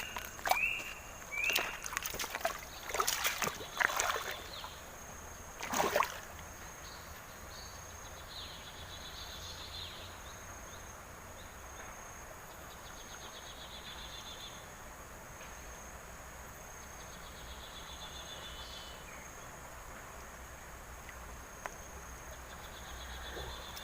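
Outdoor insect chorus: a steady high hum with short buzzy trills that come and go every few seconds. In the first six seconds, a handful of loud rustling knocks and a few short rising chirps sound over it.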